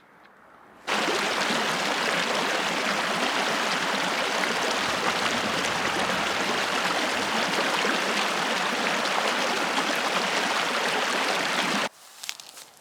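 Rushing water of a mountain stream, a steady hiss-like rush that cuts in about a second in and cuts off abruptly near the end.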